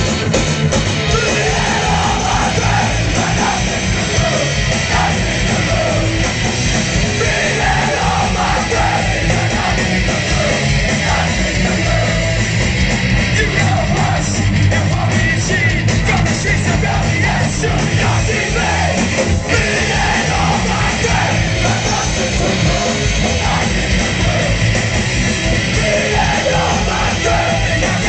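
A hardcore punk band plays live, loud and steady throughout, with shouted vocals over the band. It is recorded on a small camcorder's built-in microphone from within the crowd.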